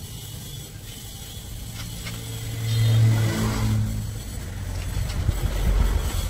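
A motor vehicle engine running: a low hum swells to its loudest about three seconds in and fades, followed by a deeper rumble that rises again near the end.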